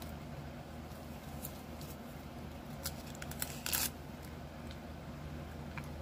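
Faint wet clicks and smacks of gum being chewed with full acrylic dentures in, a few scattered ones and then a denser cluster about three to four seconds in, over a low steady hum.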